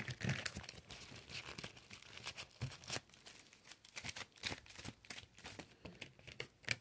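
Oracle cards being handled and drawn from the deck: faint, irregular crinkling and small clicks of cards in plastic sleeves.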